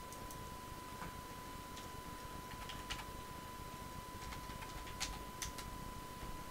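Computer keyboard keystrokes and mouse clicks: a scattering of faint, irregular clicks, the sharpest about five seconds in, over a steady faint high-pitched tone.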